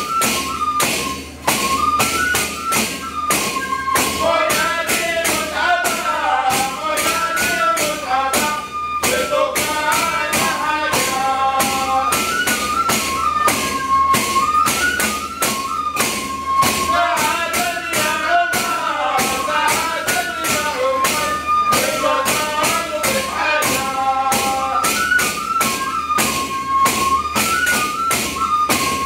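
Many wooden frame drums with metal jingles beaten together in a brisk, steady rhythm, under a group of men singing a traditional Hadrami devotional chant (inshad).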